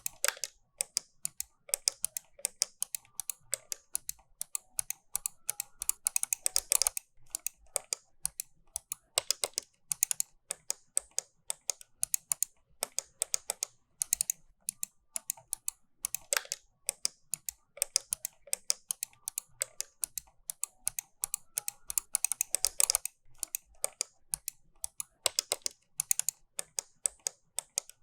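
Computer mouse button clicking over and over in an uneven rhythm: single clicks and quick double clicks, with a few dense runs of rapid clicking.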